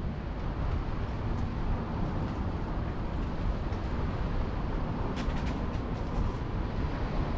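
Car driving along a road, heard as steady low rumble and wind buffeting on a car-mounted GoPro's microphone. A few light clicks come about five to six seconds in.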